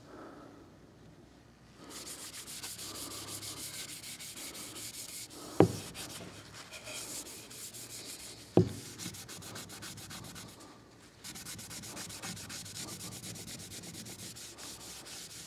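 Paper towel rubbing wood stain onto a wooden .22 rifle stock in quick back-and-forth strokes, pausing briefly near the start and again about two-thirds through. Two sharp knocks about three seconds apart in the middle.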